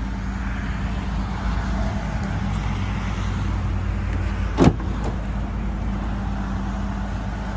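Ford F-150's 5.0 V8 engine idling steadily after a remote start. About halfway through comes a sharp click, then a fainter one, as the tailgate latch is released.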